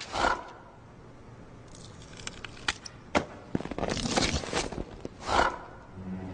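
Sparse cartoon sound effects of a polar bear straining under a barbell: a few sharp clicks and short noisy bursts, the loudest near the end.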